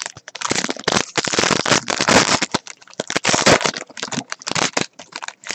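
Foil wrapper of a trading-card pack crinkled and torn open by hand, with the cards shuffling: a dense crackling rustle in several runs with short gaps, fading out near the end.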